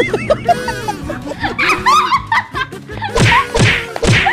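Two women laughing loudly over background music, the laughter settling into a run of breathy laughs about two or three a second near the end.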